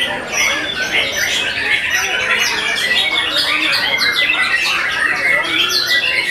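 Many caged white-rumped shamas (murai batu) singing at once: a dense, continuous chorus of overlapping whistles, trills and chatter with no break.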